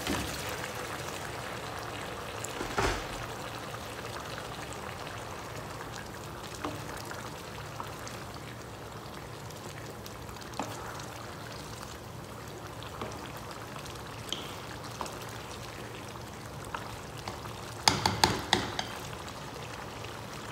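Broth sizzling and bubbling steadily in a hot pan of sautéed meat. A few quick knocks of a wooden spatula against the pan come near the end.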